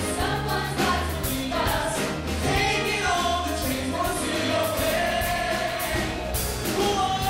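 A small vocal ensemble of men and women sings a musical-theatre song in harmony, accompanied by a grand piano.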